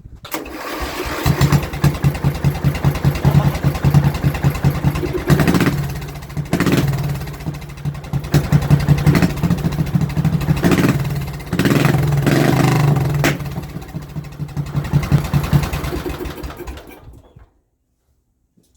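Small lawnmower engine running through a homemade add-on exhaust pipe, its speed and loudness rising and falling, then shut off near the end.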